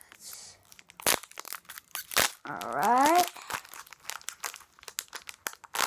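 Foil trading-card booster pack wrapper crinkling and tearing as it is opened by hand, a run of sharp crackles with two louder ones about a second and two seconds in.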